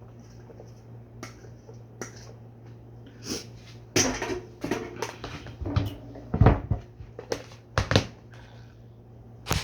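Pasta salad being put into a bowl of lettuce and toppings: scattered clicks, knocks and rustles of food and utensil against the bowl. The hits grow denser about four seconds in, with the strongest knocks around six and a half and eight seconds.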